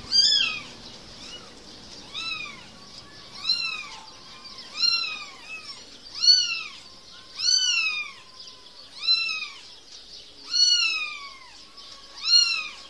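Kitten meowing over and over in a high-pitched voice, about one meow every second and a half. Each meow rises and then falls in pitch, with some softer calls in between.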